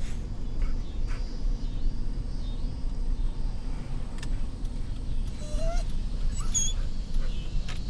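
Steady low road rumble of a moving van, heard from inside the cabin, with a few faint clicks and a brief faint rising whine about five and a half seconds in.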